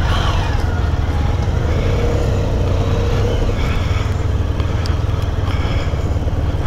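Motorcycle engines running as the bikes pull away at low speed: a steady low rumble.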